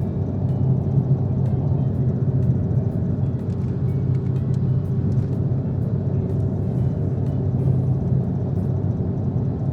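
Car engine and exhaust running steadily at a constant speed, a low drone with an unchanging pitch.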